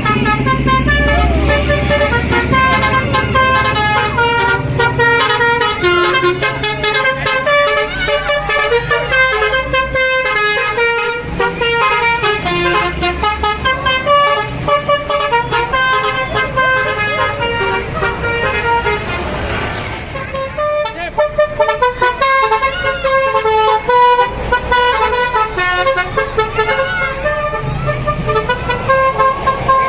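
Tour bus 'basuri' musical horn playing a quick tune of stepped, held notes, repeating phrases. A low vehicle engine drone sits under the first few seconds.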